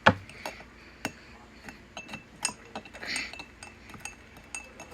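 A spoon clinking and tapping irregularly against the side of a cup while stirring, the loudest clink right at the start. It is borax powder being stirred into warm water to dissolve it.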